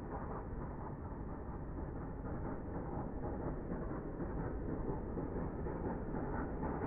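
Three-cylinder steam locomotive LNER A3 60103 Flying Scotsman working hard uphill with a heavy train: its exhaust beats blur into a steady, rough rumble.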